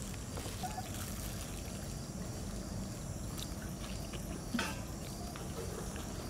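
Steady low outdoor background rumble with a few faint clicks and one sharper click about four and a half seconds in.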